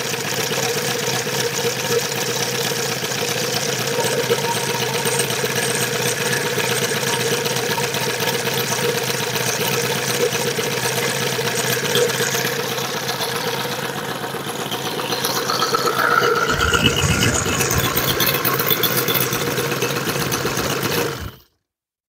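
Evolution 260 model-aircraft radial engine running steadily on a test stand, its wooden propeller spinning, after an easy restart. About three-quarters of the way through it runs louder and fuller, then the sound cuts off suddenly near the end.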